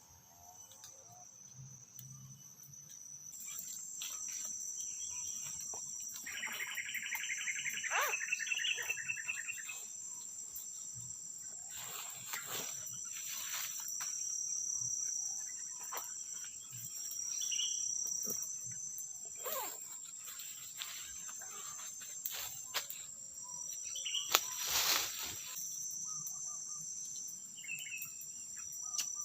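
Forest insects, such as crickets or cicadas, keep up a steady high-pitched whine that swells in a few seconds in. A rapid pulsing trill sounds for about three seconds a quarter of the way through, and scattered crackles and rustles come and go, the loudest near the end.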